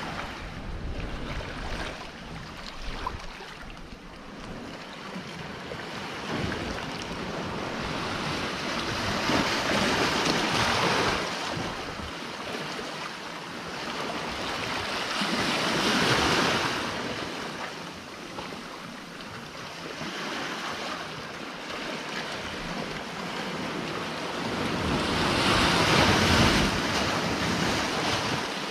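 Sea waves washing and breaking on a rocky shore, a steady wash that swells into three larger surges several seconds apart, the last the loudest. Some wind buffets the microphone.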